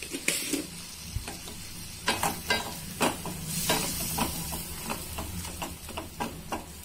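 Thick masala paste frying in oil in a pan while being stirred, with repeated short scrapes of the utensil against the pan over a low sizzle. The paste is being cooked down until the oil separates.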